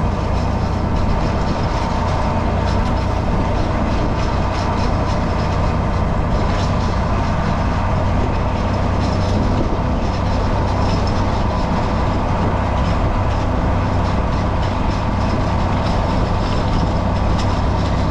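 Tractor engine running steadily while pulling a hay rake, with a strong low hum.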